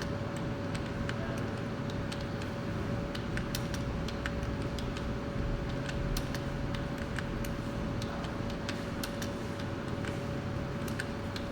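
Computer keyboard being typed on: scattered, irregular key clicks over a steady background hum.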